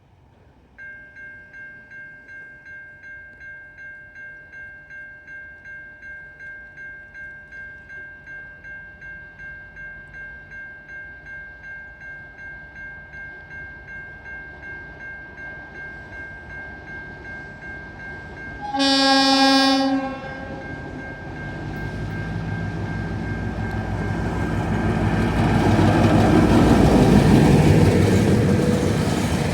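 Level crossing warning bells start about a second in and ring steadily at about two strokes a second. Near two-thirds through, Tasrail TR-class diesel locomotive TR04 gives one horn blast of about a second. The locomotive and its cement train then approach, and the engine and wheel noise grows loud toward the end.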